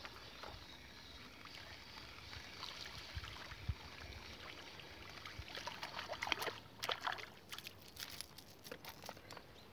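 Light splashing and sloshing at the water's surface as a hooked fish on a popper lure is reeled in, with the splashes getting busier in the second half.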